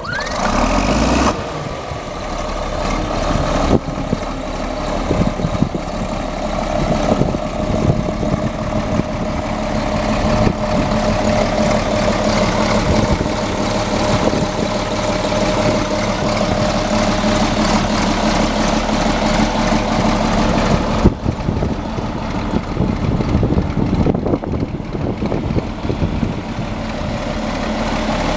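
A 1981 John Deere 4640 tractor's turbocharged six-cylinder diesel engine catching as it is started, running briefly faster for about a second, then settling into a steady idle.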